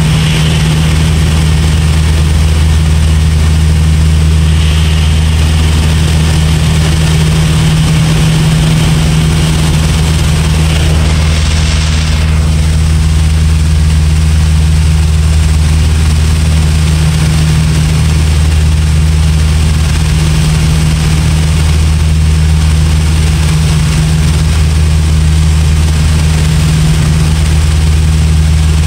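A Piper light aircraft's piston engine and propeller droning steadily, heard from inside the cockpit as a loud, even low hum. A higher hiss above it eases about twelve seconds in.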